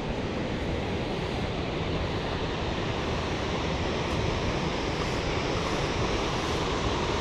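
Steady outdoor rushing noise with an unsteady low rumble underneath.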